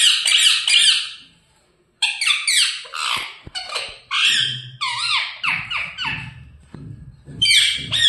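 Pet parrot squawking: quick runs of shrill, repeated calls that drop in pitch. There is a short silent break about a second in, then more squawks.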